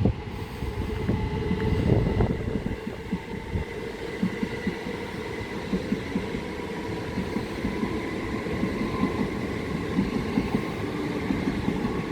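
Two coupled Class 375 Electrostar electric multiple units passing through the station without stopping: a continuous rumble of wheels on rail with rapid uneven clatter and a faint steady whine, loudest about two seconds in.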